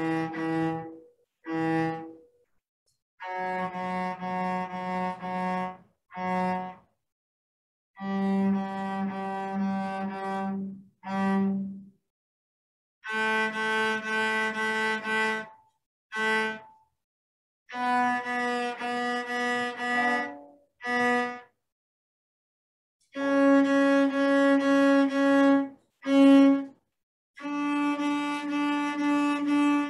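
Cello playing an ascending D major scale. Each note is repeated in the 'Mississippi hot dog' bowing rhythm: a run of quick, short, stopped bow strokes, then a brief pause and a short stroke or two, before stepping up to the next note.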